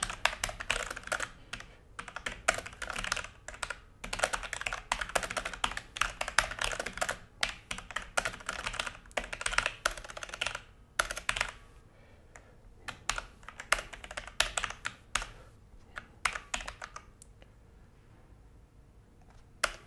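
Typing on a Logitech G413 mechanical keyboard: fast, dense runs of keystrokes for about ten seconds, then sparser strokes that stop a few seconds before the end, with one last click at the very end.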